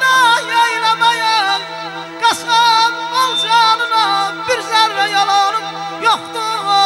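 Azerbaijani folk tune: a harmonica cupped against a microphone plays a highly ornamented lead melody with quick trills and slides. Steady held keyboard chords sound beneath it.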